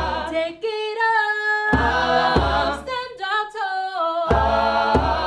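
An a cappella choir sings a Southern African song in several-part harmony, the voices holding and shifting chords together. Deep thuds sound a few times under the voices.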